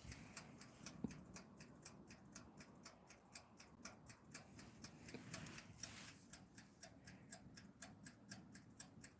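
Faint, rapid, steady ticking of a toaster oven's wind-up timer, about five ticks a second, as the timer runs down on the toast setting.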